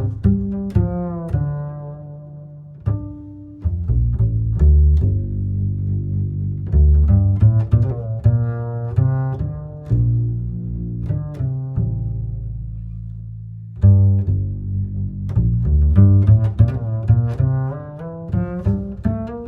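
Instrumental background music: a run of deep, plucked and held notes from low-pitched instruments.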